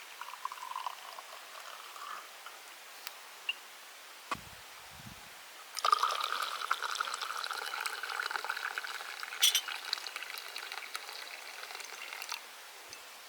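Liquid poured steadily into a glass for about six seconds, starting suddenly about six seconds in, after a few light clicks.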